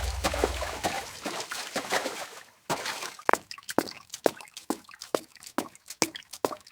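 Deep boom fading out over the first second, then, after a short pause, a run of small water plops and drips, three or four a second, in a sound effect meant as footsteps on water.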